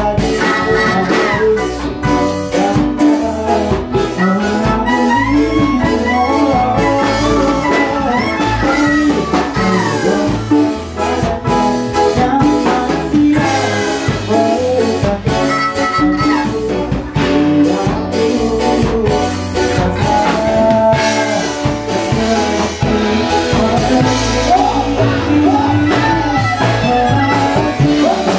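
A band playing a song with a lead singer over guitar, bass and drums, in a steady beat.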